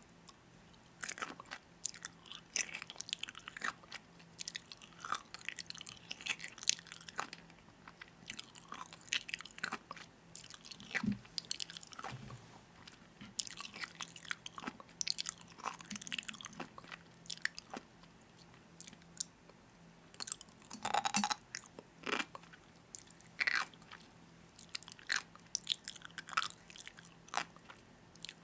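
A person chewing and biting crunchy food, with irregular crisp crunches throughout.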